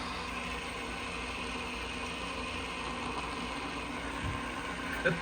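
A handheld metal fidget toy spun by hand, whirring steadily with a rough mechanical rasp. A couple of sharp clicks come near the end.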